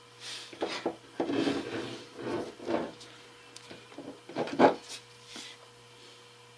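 Fingers tapping and rubbing on the foam windscreen of a Rode VideoMic GO shotgun microphone, a string of scratchy scuffs with the loudest just before five seconds in. This is a tap test that shows the mic is now being picked up through a TRRS adapter.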